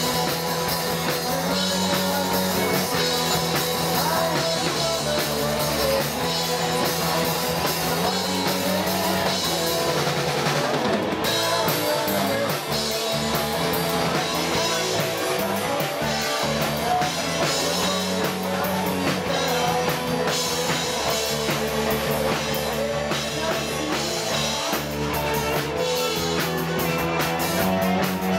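Live rock band playing loud and steady: electric guitars, bass guitar and drum kit.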